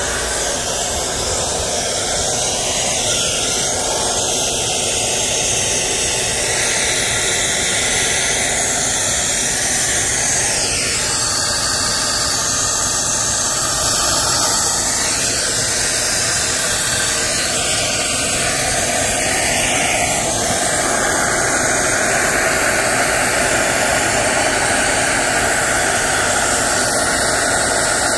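Compressed air hissing steadily out of a loose air hose between two passenger rail carriages: an air leak from the disconnected hose coupling.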